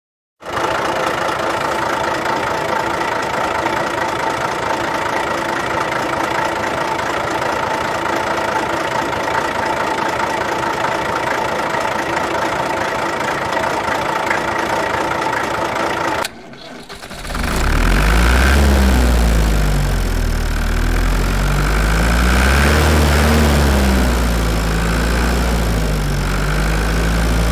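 Engine sound effect laid over the toy scene. First comes a steady mechanical drone. After a brief break about 16 seconds in, a deep engine runs with its pitch rising and falling as if being revved.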